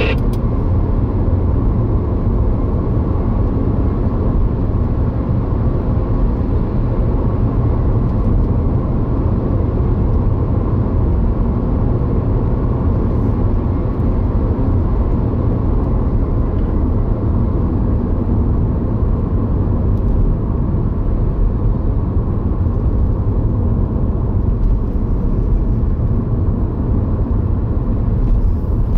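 Steady road and engine noise of a car driving at speed, heard inside the cabin: an even low rumble with no changes.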